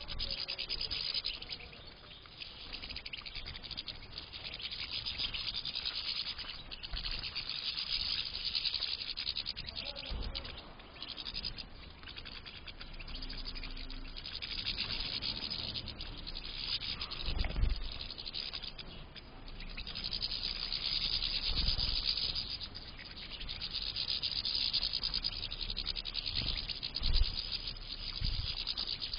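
A flock of European goldfinches twittering together, a dense high chatter that swells and eases in waves, with a few dull thumps.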